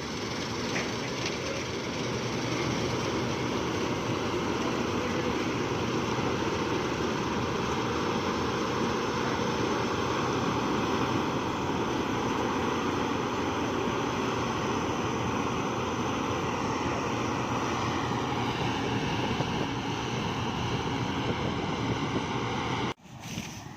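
Wheat-harvesting farm machinery running steadily with a dense engine drone, which cuts off abruptly near the end.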